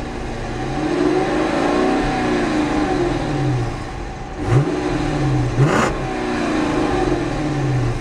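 Chrysler 300C's HEMI V8 revved in park through its dual exhaust: a rev that rises and falls back, two quick sharp throttle blips about halfway through, then another rev that sinks back toward idle.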